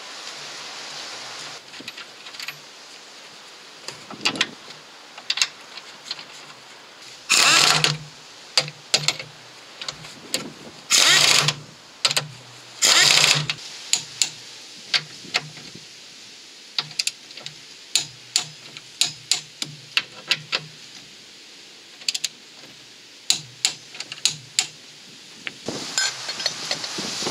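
Ratchet wrench tightening engine mounting bolts: three short runs of fast ratcheting, then separate sharp clicks about two or three a second. Metal parts clink as they are handled near the end.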